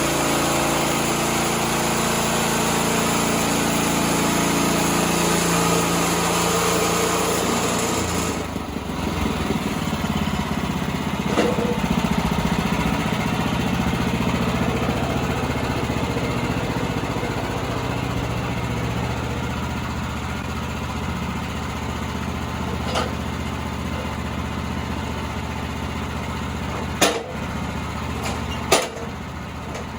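Engine of a Woodland Mills HM126 portable bandsaw mill running steadily, its note changing about eight seconds in. Two sharp knocks come near the end.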